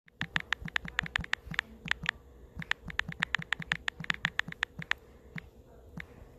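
Typing on a smartphone's on-screen keyboard: a quick run of key clicks, several a second, ending in two last taps near the end.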